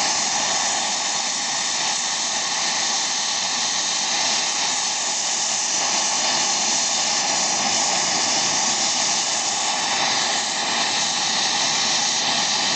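Gas torch burning with a steady hiss while heating a seized excavator track bushing to free it.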